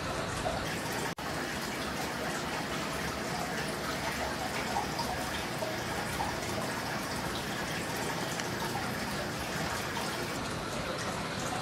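Steady splashing and trickling of water in a large aquarium, the sound of its filtration return running, with a brief cut-out about a second in.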